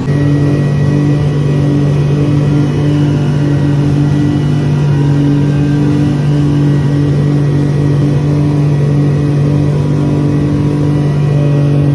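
Speedboat engines running steadily at speed, a loud even drone, over the rush of the boat's wake and wind.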